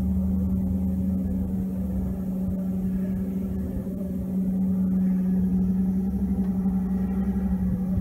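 Truck engine running with a steady low drone and hum, heard from inside the cab.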